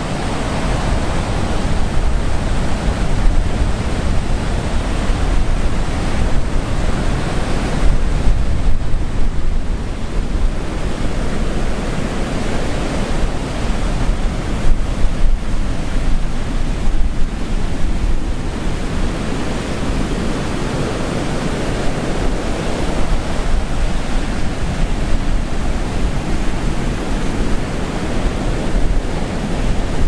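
Heavy surf of a rough sea, waves breaking and washing in one after another in a continuous loud rush that swells as each one crashes. Wind rumbles on the microphone underneath.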